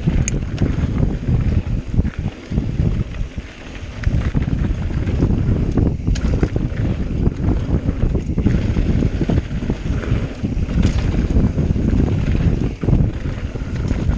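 Wind buffeting a GoPro microphone on a mountain bike moving fast down a dirt singletrack, mixed with tyre noise on the trail and occasional clicks and rattles from the bike. It eases for about a second around three seconds in, then picks up again.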